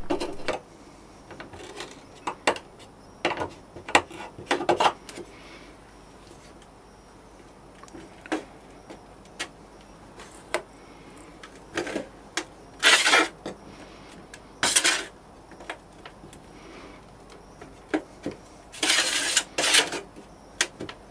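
A metal spoon scraping and clinking while casting sand is packed and scooped into a flask on a metal tray: scattered sharp clicks and taps, with a few longer scrapes, the longest near the end.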